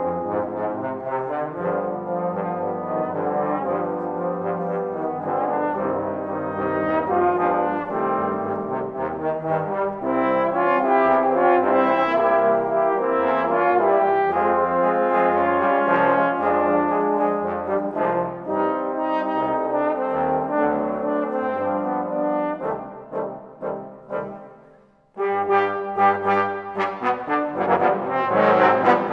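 A trombone octet playing a danzón, with several trombones sounding together in harmony. About 23 seconds in, the music dies away to a brief pause, and the full ensemble comes back in loudly about two seconds later.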